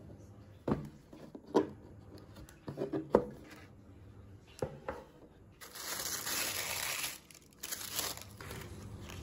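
Cardboard shoe box handled, with a few sharp knocks and taps as the lid comes off, then tissue paper rustling and crinkling in two bursts as it is folded back from the shoes.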